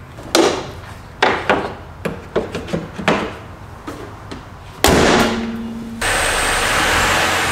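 Several sharp knocks and clatters, then one loud slam of a car body panel being shut about five seconds in, with a short low hum ringing after it. A steady hiss follows.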